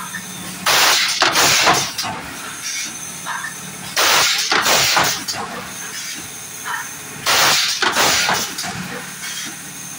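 PET bottle blow-moulding machine cycling: three loud hisses of compressed air about every three and a half seconds, one per bottle blown and exhausted from the mould, over a steady low machine hum.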